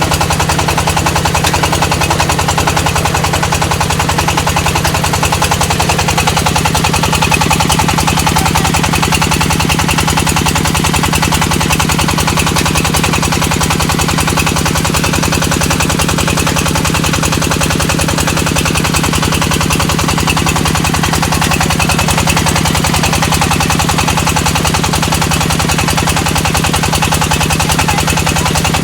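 Brick-making press machine running steadily: a loud, fast, even mechanical rattle over a constant low hum.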